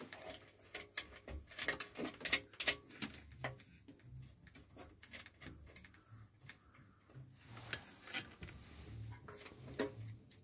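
Irregular small clicks and taps, several a second, from handling test leads and bench test equipment.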